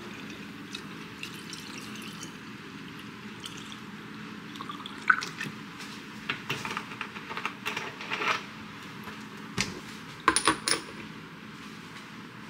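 Faint liquid sounds from water with lemon and cucumber slices in a glass carafe, with scattered small clicks. About ten seconds in, three quick glass-on-glass clinks as a small glass is set upside down on the carafe's neck as a lid.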